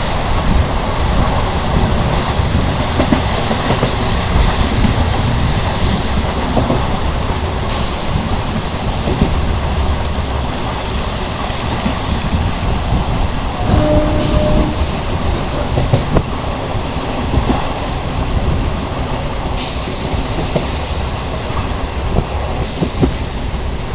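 Moving train heard from aboard: a steady rumble of wheels on the rails with hiss, and a few sharp clacks over rail joints. A short tone sounds briefly about halfway through.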